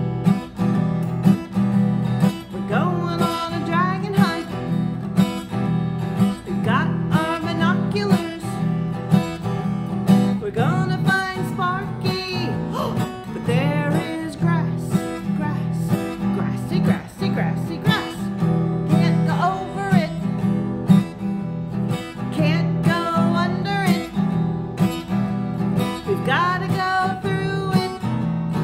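Acoustic guitar strummed in a steady rhythm, with a woman singing along to it.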